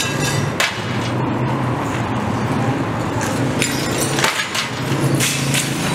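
Broken window glass being knocked out of its frame: a few sharp cracks and clinks of glass, a second or so apart in the second half, over a steady low hum.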